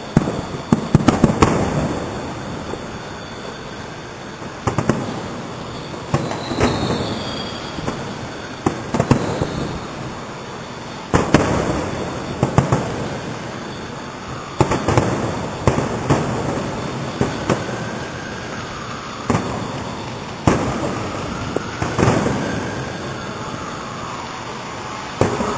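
Fireworks display: aerial shells bursting in a long irregular series of sharp bangs, with a quick cluster about a second in, then single and double booms every second or two, and thin gliding whistle-like tones between some of them.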